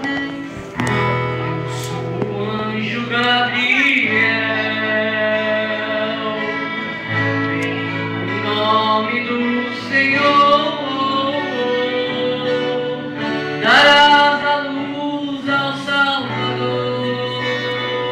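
A song played live: singing over guitar and held bass notes that change every few seconds.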